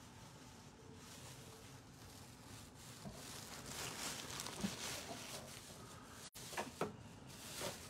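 Quiet room noise with faint rustling and a few soft knocks, the loudest a pair of knocks near the end.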